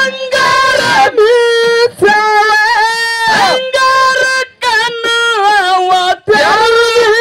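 A man singing a Kannada dollu folk song solo into a microphone: long, high held notes with ornamented slides at the phrase ends, broken by short pauses for breath. No drums are heard.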